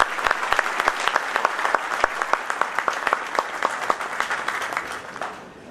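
Audience applauding, with many hands clapping, dying away near the end.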